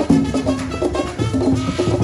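Background music with percussion and a steady beat.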